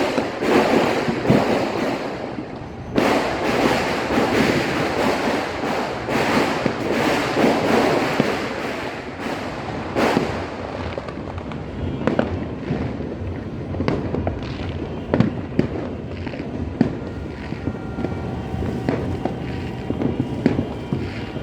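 Many fireworks and firecrackers going off at once: a dense, continuous crackle of overlapping bangs for about the first ten seconds, thinning after that to scattered separate bangs.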